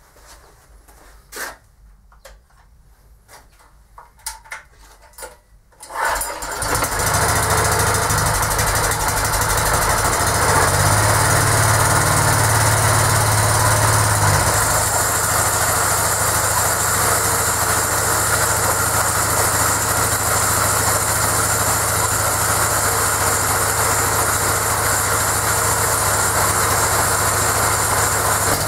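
A log splitter's Möller 6.5 hp 196 cc single-cylinder petrol engine, driving a tractor hydraulic pump. After a few knocks and clicks it starts about six seconds in and then runs steadily.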